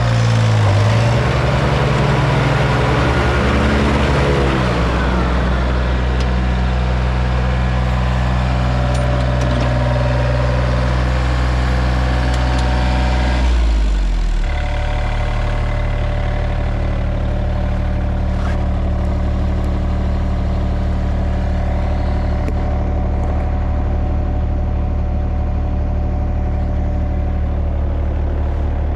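John Deere 1445 front-mount mower's three-cylinder diesel engine running steadily. Its note wavers during the first few seconds, then drops to a lower steady pitch about fourteen seconds in.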